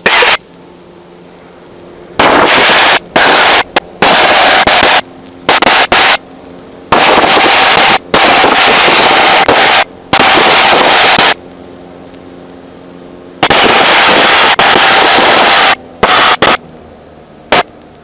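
Cockpit audio in a Cessna 150: the engine's steady drone, broken again and again by loud bursts of hiss that switch on and off abruptly, about a dozen times, some lasting a second or more and some only a blip.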